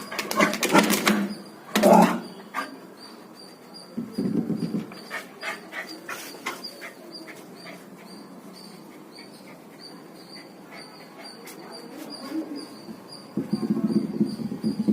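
A dog vocalizing: loud short bursts in the first two seconds, a brief low sound about four seconds in, then quieter scattered clicks. A steady low, rapidly pulsing sound starts near the end.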